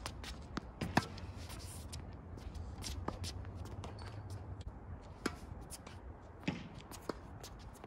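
Tennis balls being struck with a Babolat Pure Aero VS racket and bouncing on a hard court, heard as a series of sharp knocks, the loudest about a second in, with shoes scuffing between shots.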